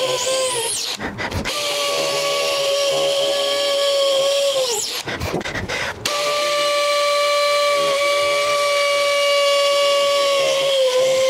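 Makita cordless hammer drill in hammer-drill mode, boring holes in concrete with a 3/8-inch masonry bit. The motor runs at a steady pitch and sags just before each stop, in three runs with short breaks about a second in and about five seconds in.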